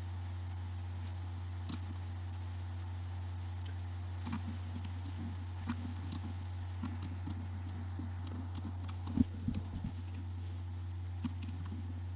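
Steady low electrical hum with scattered clicks from a computer mouse and keyboard, and a louder knock about nine seconds in.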